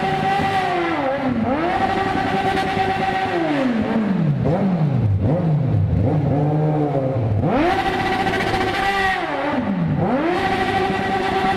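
Yamaha XJ6 motorcycle's 600 cc inline-four engine revved hard while standing still: held at high revs, dropping and climbing again several times, with a run of quicker, lower blips in the middle.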